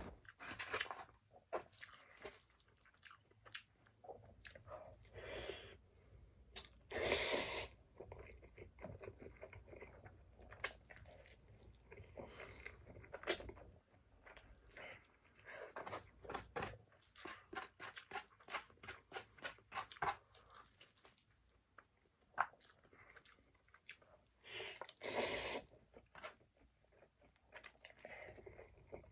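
Close-up sounds of a person eating instant noodles: steady chewing with many small wet clicks and smacks, and two longer, louder noisy bursts about seven seconds in and again near the end.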